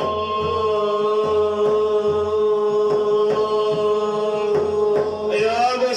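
A singer holding one long note in an Arabic religious chant (madih in praise of the Prophet), over a steady drum beat of about two strokes a second; near the end the voice moves into a new phrase.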